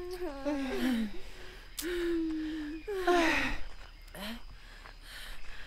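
Women groaning and sighing wordlessly from the exertion of a hot uphill walk: several drawn-out moans, some sliding down in pitch.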